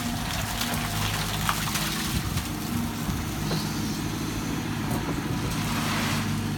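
Hyundai 140 excavator's diesel engine running steadily under hydraulic load as it lifts a bucket of soil out of a trench. Near the end there is a rush of dirt spilling from the bucket onto the spoil pile.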